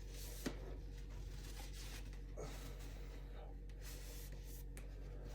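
Faint scratchy rubbing of a damp sponge loaded with Bar Keepers Friend powder against a steel knife blade, in a few soft strokes, with a small click about half a second in.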